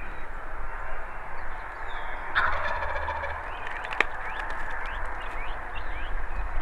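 A close wild turkey gobbler gobbles once, a loud rapid rattling call about two seconds in. A single sharp click follows about a second later.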